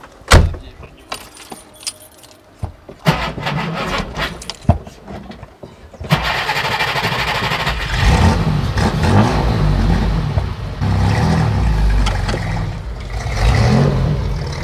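A car door shuts with a thump, followed by small clicks of keys and switches inside a 1955 Mercedes-Benz Ponton 220a. About six seconds in, its 2.2-litre straight-six engine starts and runs, its pitch rising and falling with the throttle.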